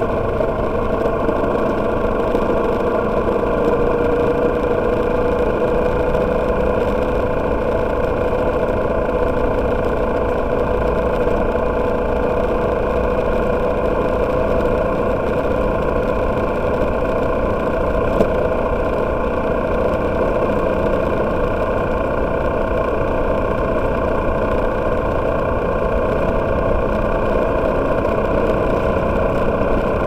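Freshly overhauled motorcycle engine running steadily at cruising speed on a long test run, with one steady strong note over the hum of road and wind noise, echoing inside a road tunnel. One small click comes about 18 seconds in.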